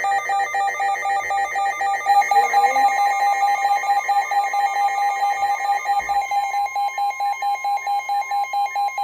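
Weather radio receiver's alert alarm, a loud warbling beep pulsing several times a second, set off by an incoming severe thunderstorm warning. From about six seconds in, the NOAA Weather Radio's steady 1050 Hz warning alarm tone sounds beneath it and continues alone once the beeping stops near the end.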